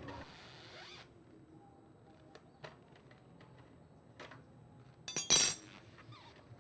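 Small metallic clicks and clinks of a T-handle wrench and bolts as a scooter's plastic radiator cover is unbolted, with one louder clatter about five seconds in.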